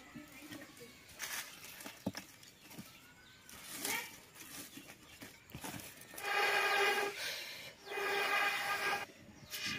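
Dry twigs and sticks rustling and knocking as they are pushed into a clay wood-burning stove, then two long breaths blown through a metal blowpipe into the firebox to fan the fire, each lasting about a second with a steady pipe tone under the breath noise.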